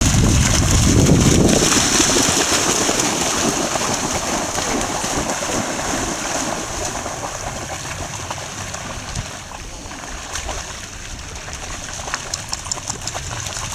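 Dogs, among them a border collie, running and splashing through shallow sea water. The splashing is loudest in the first two seconds and fades, with lighter separate splashing steps near the end.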